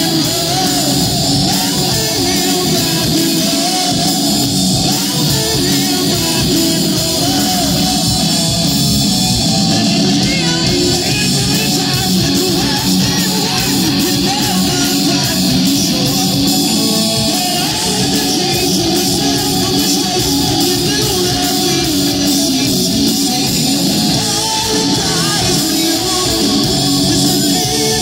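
Live rock band playing loud, with electric guitars and a male singer on lead vocals.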